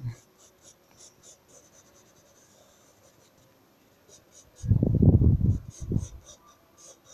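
Pencil sketching on lined paper: faint, short scratchy strokes, several a second. A loud low rumble lasting about a second breaks in about two-thirds of the way through.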